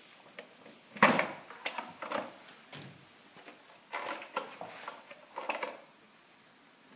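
Plastic knocks and rattles as the air filter housing is worked loose and lifted by hand. There is one sharp knock about a second in, then scattered smaller clunks, with bunches of rattling near four and five and a half seconds.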